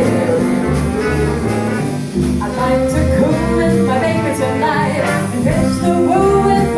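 Big band jazz music with a singer, over a steady bass line.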